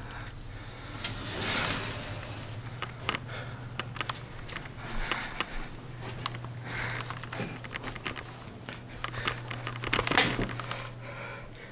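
Rustling and scattered clicks of a handheld camera being moved about, with soft noisy swells and a steady low hum underneath.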